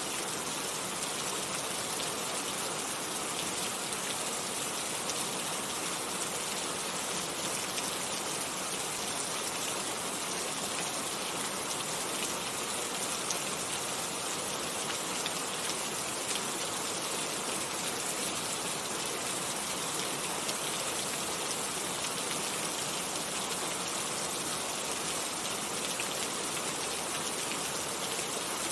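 Steady rain falling, an even hiss of many drops with fine scattered patters, unchanging throughout.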